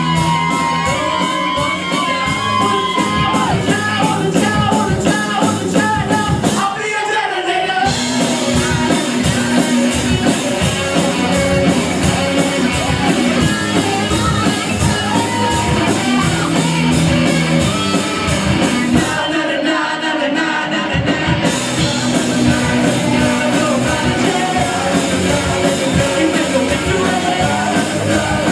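Live rock band playing loud: electric guitars, bass and drums under a shouted lead vocal, with two short breaks in the band's sound, about 7 seconds in and again around 19 to 21 seconds in.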